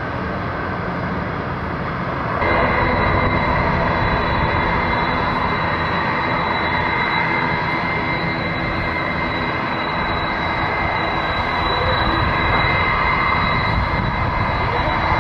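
Airbus A330 jet engines at taxi power: a steady high whine over a rumble. About two seconds in it jumps suddenly louder and the whine turns sharper and stays so.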